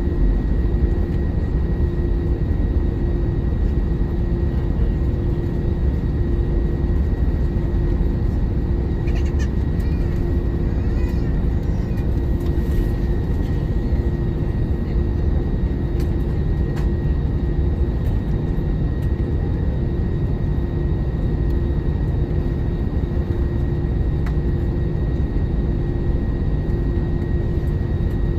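Steady cabin noise inside an Airbus A321-200 with its jet engines at low power while taxiing: a low rumble with a steady hum and a fainter high whine. A faint, high, wavering sound comes in about ten seconds in and lasts a few seconds.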